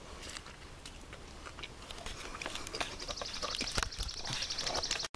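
Wood fire crackling and popping in a washing-machine-drum fire pit, with a few louder knocks near the middle. About three seconds in, a bird gives a rapid, high trill lasting about two seconds.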